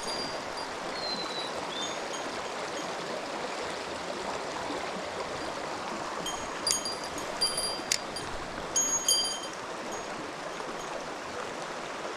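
Mountain stream water rushing steadily over rocks. Several sharp clicks with a brief ringing tone come in a cluster about two-thirds of the way through, and a short falling whistle is heard about a second in.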